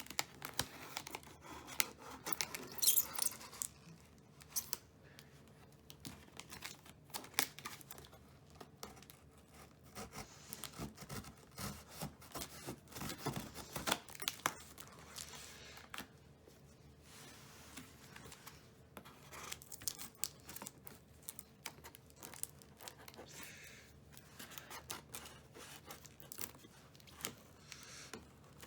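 Packing tape being cut and torn off a cardboard shipping box: irregular scratching, tearing and crinkling with scattered sharp clicks.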